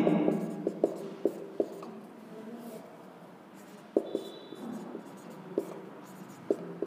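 Marker pen writing on a whiteboard: irregular light taps and short strokes as the tip meets the board, a few sharper than the rest.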